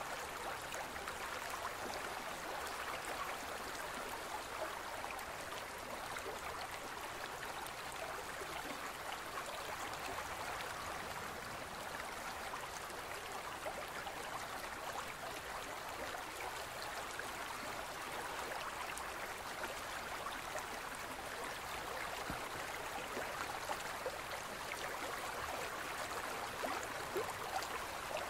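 A gentle stream running over rocks: a steady, even rush of water with fine trickling detail.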